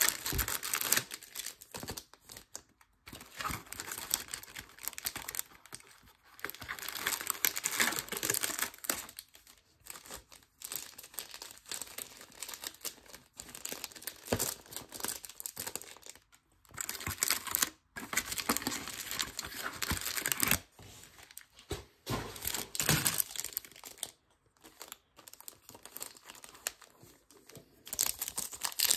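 Shiny Topps Chrome card-pack wrappers crinkling in irregular bursts with short pauses as packs are handled, and a pack being torn open by hand.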